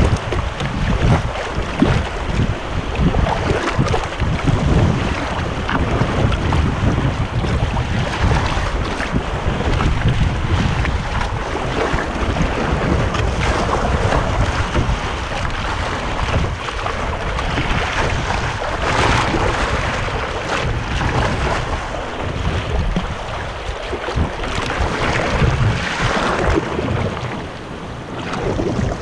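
Steady rush of river rapids churning around a canoe's hull, with wind buffeting the microphone in a deep rumble.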